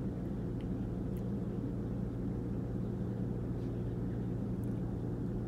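Store room tone: a steady low hum, with a couple of faint ticks.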